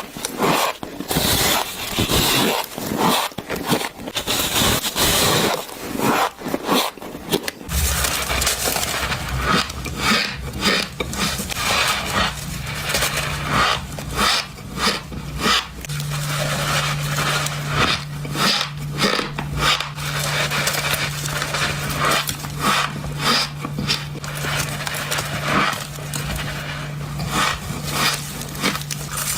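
Shaved ice being chewed close to the microphone: dense squeaky crunching, bite after bite, with no pause.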